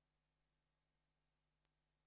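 Near silence: a faint steady hum with one tiny click.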